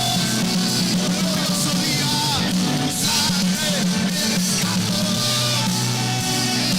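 Christian worship song played by a band, with a sung voice over sustained chords and a high shimmering haze of cymbals.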